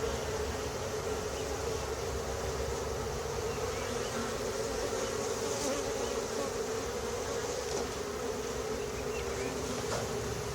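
Many honeybees buzzing around a hive in a steady, dense hum.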